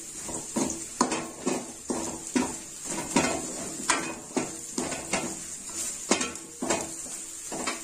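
Metal ladle clinking and scraping against a metal kadai, about two strokes a second, as a tempering of small onions and curry leaves is stirred in hot oil. A steady light sizzle of the frying runs underneath.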